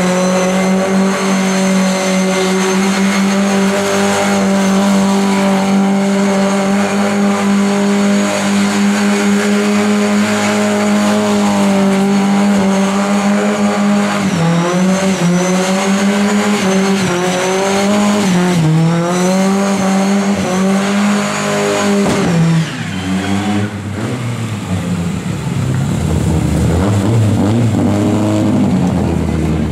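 Lada saloon doing a burnout: its four-cylinder engine held at high, steady revs while the rear tyre spins and squeals on the tarmac. The revs then rise and fall in waves, drop a little over twenty seconds in, and run lower and uneven to the end. By then the tyre is worn through.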